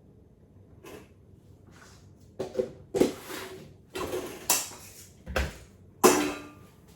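Kitchen clatter of dishes and utensils being handled: after a quiet start, a run of about six sharp knocks and clinks, some of them ringing briefly, the loudest near the end.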